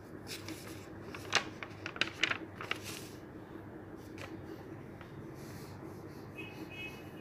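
Sheets of drawing paper rustling and flapping as a hand leafs through a stack of cards, a quick run of crisp rustles in the first three seconds and then only a steady low hum.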